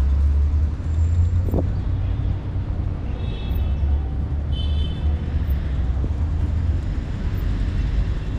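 Steady low rumble of city road traffic, with two short high chirps about three and a half and five seconds in.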